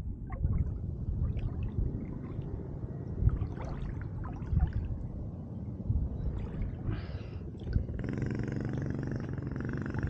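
Small boat moving along a river: a steady low rumble of water and wind, with scattered splashes and knocks. About eight seconds in, a steady droning hum with several pitches sets in.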